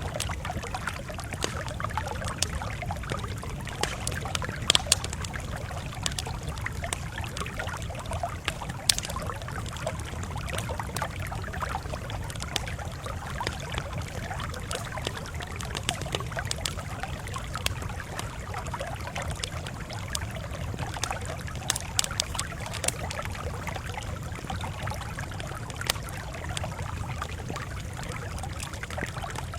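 Wood fire crackling, with scattered sharp pops, a few louder than the rest, over a steady low rumble.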